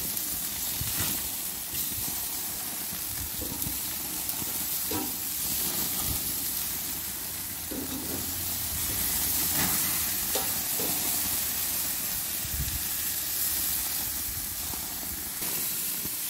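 Marinated steaks sizzling on a barbecue grill as they near doneness: a steady hiss with a few faint ticks.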